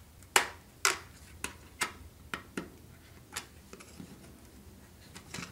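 Sharp, irregular little clicks, about nine of them, as small track nails are popped up out of the roadbed under model railroad flex track, metal tool and nails ticking against the rails.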